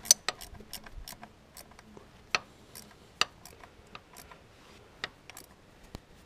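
Irregular small clicks and taps from hands handling wiring and wire connectors, the sharpest right at the start.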